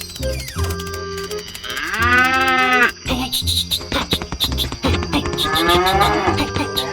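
A cow mooing twice, one long call about two seconds in and another near the end, over background music with a steady beat.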